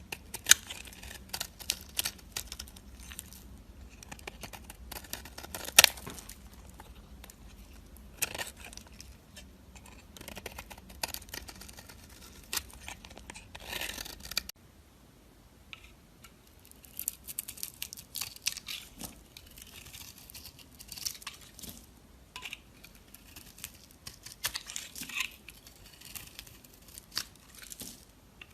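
Knife cutting and carving dry soap: crisp crackling cuts and short scraping strokes at irregular intervals, with a few sharp snaps, the loudest about six seconds in.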